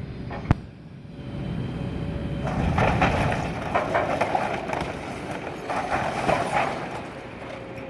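Excavator's engine working under load while it demolishes a temporary building, with crunching and scraping of debris in two louder spells. A single sharp knock comes about half a second in.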